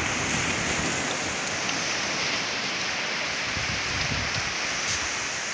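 Steady hiss and wash of small waves breaking on a sandy beach.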